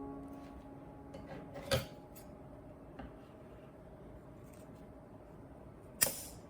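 Handling noise from hard objects: a few sharp clicks and knocks, one loud knock a little under two seconds in and a louder short clatter near the end, with a piano chord fading away at the start.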